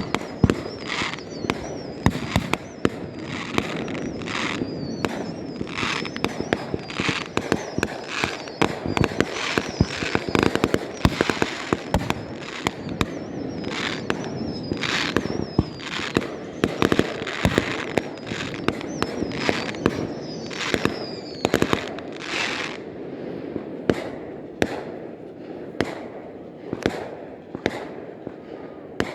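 Fireworks display: a dense, continuous run of sharp bangs and crackling bursts, with high whistling shells heard near the start and again in the middle.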